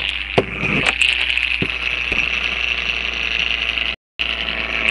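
A homemade gyroscope made from a VCR's metal head drum, spun by hand, whirring steadily as it spins on a countertop, with several light clicks in the first two seconds. The sound cuts out for a moment about four seconds in.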